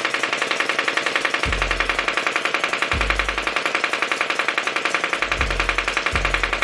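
Battery-powered SKD light-up gel blaster firing on full auto, a steady rapid stream of shots at about ten a second, over background music with deep bass notes.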